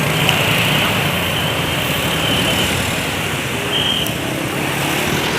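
Steady noise of road vehicles close by, like traffic running past, holding an even level without a clear horn tune.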